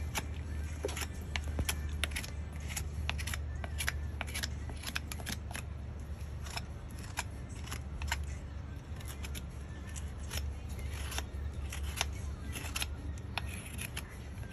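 Farrier's hoof knife paring a horse's hoof sole and frog: a run of short, crisp cuts and scrapes, irregular, about two a second.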